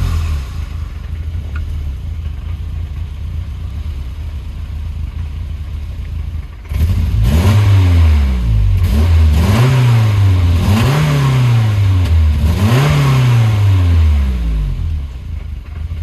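Volvo 240 red block four-cylinder engine idling unevenly for several seconds, then blipped through about four free revs that rise and fall before dropping back toward idle. The rough idle and light pinging are put down by the owner to distributor timing that needs adjusting.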